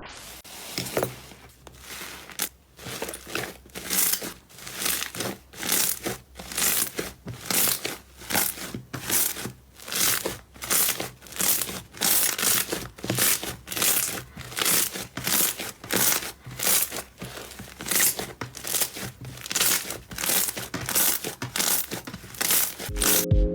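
Slime being squeezed and kneaded over and over: crinkly, crackling squishes repeating a little under two a second, building from soft to louder.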